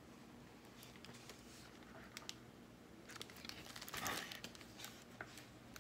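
A picture book's paper page being turned: a few faint clicks, then a soft rustle that is loudest about four seconds in.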